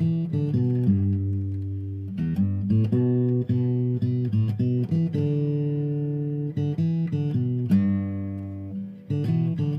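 Background music: guitar with plucked notes and chords.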